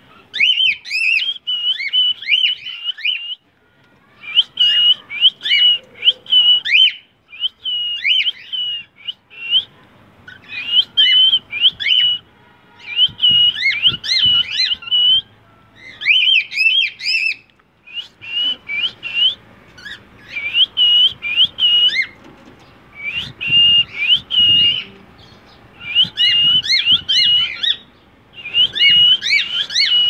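Male cockatiel whistling its song: bursts of warbling whistled phrases that glide up and down, repeated over and over with short pauses between them.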